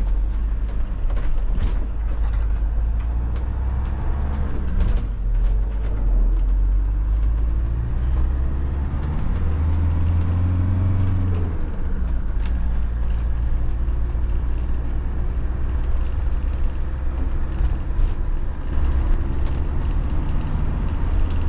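Camper van driving: steady low engine and road rumble, with the engine note briefly rising and falling about ten seconds in.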